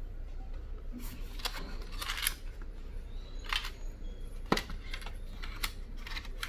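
Small clicks and light rustles of phone accessories and their packaging being handled, about eight irregular taps, over a steady low hum.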